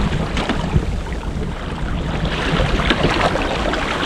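Wind buffeting the microphone over choppy sea water splashing and slapping against a fishing kayak's hull, with scattered short splashes.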